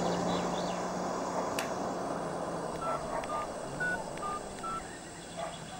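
Mobile phone keypad beeping as a number is keyed in: five short beeps at slightly different pitches, starting about three seconds in. Under them the steady hum of a car engine fades away.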